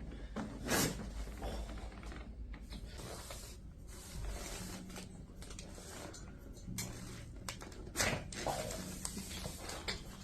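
Chiropractic adjustment on a treatment table: shuffling and handling noise, with two sharp knocks, about a second in and near the end.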